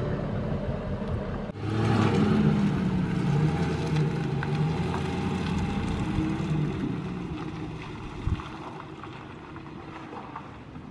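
A pickup truck's engine driving away, its low note wavering. It comes in sharply about a second and a half in and fades steadily as the truck pulls off.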